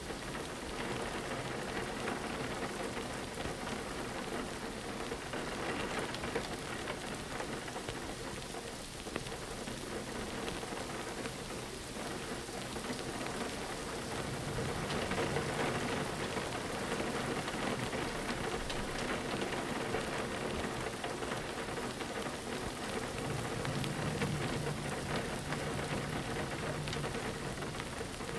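Steady rain pattering on a window pane. A low rumble swells about halfway through and again near the end.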